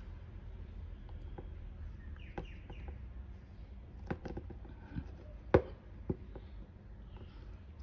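Scattered metal clicks and short scrapes as a can key is wound to peel the tin tear strip off a key-opening can, with one sharp click about five and a half seconds in.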